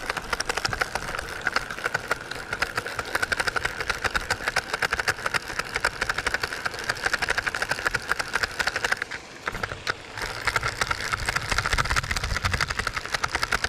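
Fishing reel cranked steadily on a crankbait retrieve: a fast, even run of mechanical clicking that breaks off briefly about nine seconds in, then starts again.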